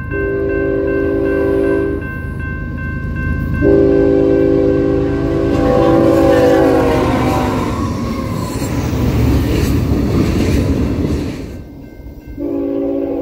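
Union Pacific AC45CCTE locomotive sounding its Nathan K5HL five-chime horn on approach. One blast ends about two seconds in, then a longer blast drops in pitch as the locomotive passes, followed by the locomotive and freight cars rumbling by on the rails. After a sudden cut near the end, another train horn begins sounding.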